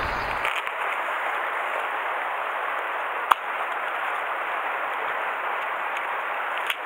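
Steady rushing of a river stream, with a single sharp click about three seconds in and a fainter one near the end.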